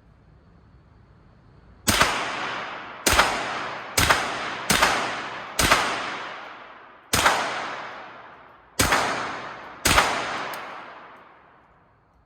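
Henry AR-7 semi-automatic .22 LR rifle fired eight times at an uneven pace over about eight seconds, likely emptying an 8-round magazine. Each crack is followed by a long echoing tail.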